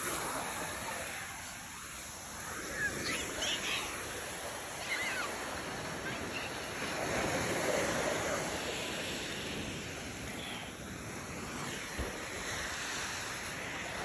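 Ocean surf breaking and washing onto a beach: a steady rush of waves that swells and eases, loudest about halfway through.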